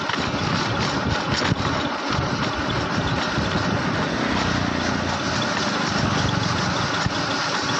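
A small vehicle engine running steadily while on the move, with a rough, even drone.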